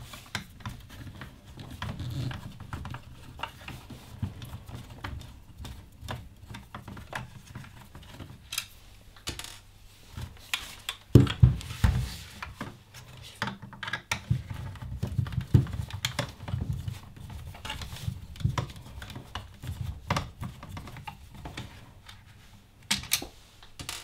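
Small screwdriver work on the plastic main body of a Dyson V11 cordless vacuum: light, irregular clicks and scrapes as tiny screws are turned out, with handling knocks of the plastic unit on the worktop. There are louder knocks about halfway through and again near the end.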